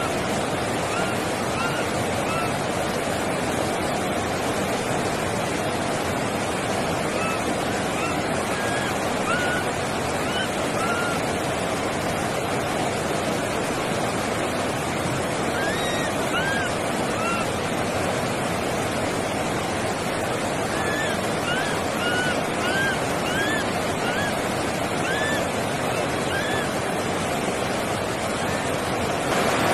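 Baby macaque giving short, arched coo calls, several in quick succession in each of four runs, over a steady rushing noise.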